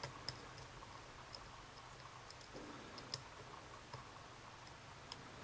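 Faint, scattered clicks of a lock pick working the pins of a Bricard Mistral S dimple lock cylinder under tension, as the pins are picked again from the start.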